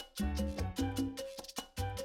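Background music with a steady, upbeat beat: pulsing bass notes, quick percussion hits and a bright melody.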